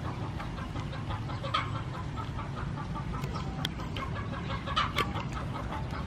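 Chickens clucking in short repeated calls over a low steady rumble, with a few brief sharp sounds, the loudest about five seconds in.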